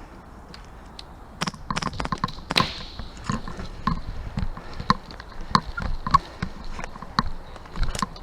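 Airsoft rifle fired in quick single shots, a sharp click about two or three times a second starting about a second and a half in.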